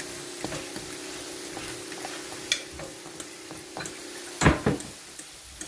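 A fork stirs and scrapes scrambled eggs in a stainless steel frying pan, with light metal clicks over a steady frying sizzle. Two loud knocks of metal on metal come close together about four and a half seconds in.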